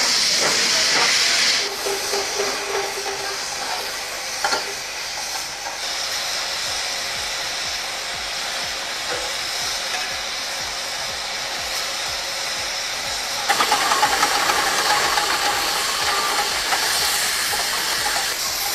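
Steam locomotive venting steam in a loud hiss that drops off after a second or two, leaving a softer steady hiss with an odd knock. About two-thirds through it grows louder, with a run of clanks and clatter over the hiss.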